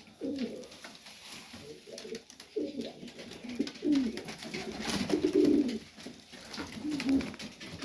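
Domestic pigeons cooing: several low, warbling coos one after another, with light clicks and rustles of the birds moving.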